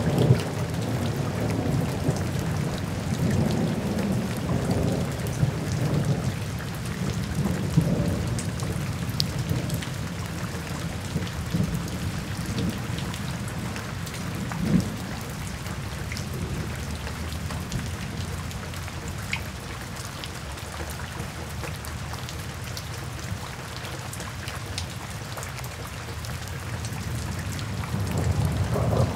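Steady rain falling, with scattered drip ticks and low rolling thunder that rumbles through the first several seconds, eases off, and builds again near the end.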